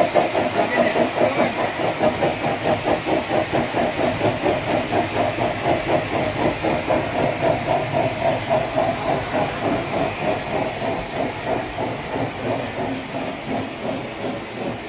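Sawmill machinery running with an even, rapid pulsing of about four beats a second, gradually fading near the end.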